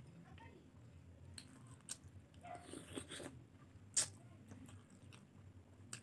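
Close-up eating sounds of a person chewing saucy chicken adobo and rice: wet chewing with a few sharp clicks and smacks, the loudest about four seconds in, over a steady low hum.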